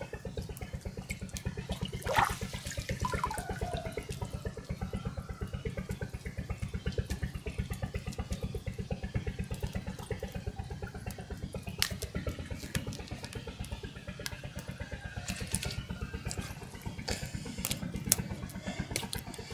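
Water splashing and dripping as a gill net is pulled from a pond and fish are picked out of it, with a few sharper splashes. A small motor chugs steadily underneath.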